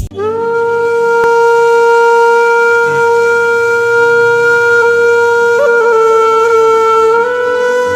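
Intro music: a wind instrument holding one long note, with a short waver about five and a half seconds in and a slight step up in pitch near the end.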